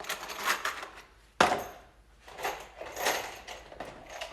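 Loose metal screws clattering and rattling in a plastic organizer bin, with one sharp knock about a second and a half in.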